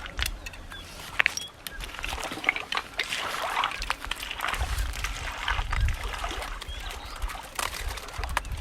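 Water splashing and sloshing in a shallow river as people wade and work through it with their hands, with many small clicks and splashes and some low rumbles near the middle.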